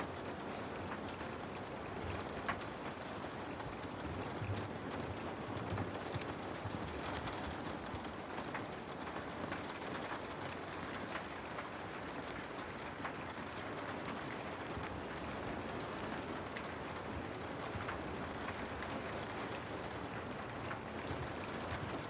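Steady rain, with scattered individual drops ticking.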